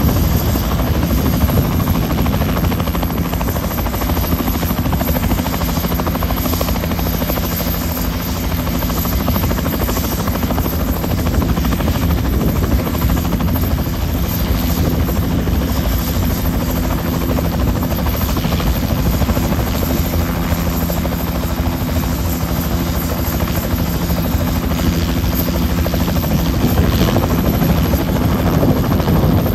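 Bell 206-type turbine helicopter running at flight speed on the ground: a steady whine and the chop of its two-bladed rotor. The sound gets a little louder near the end as it lifts into a low hover.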